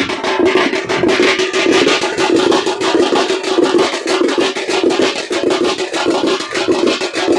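Fast, steady drumming at a street procession, many beats a second without a break.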